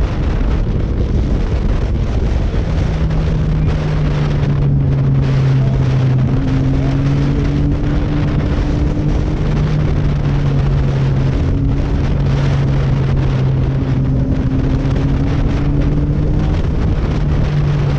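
Wind rushing over the microphone of a camera on a moving sport bike, with the motorcycle's engine running at a steady cruise underneath. The engine note sets in a couple of seconds in and holds a fairly even pitch that drifts a little up and down.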